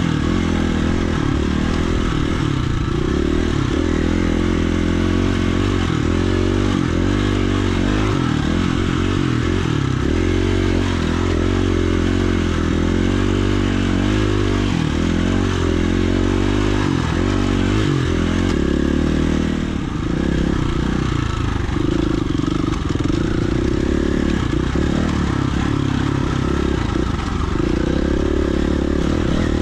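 Dirt bike engine heard close up while riding, its pitch rising and falling over and over as the throttle is worked on rocky singletrack.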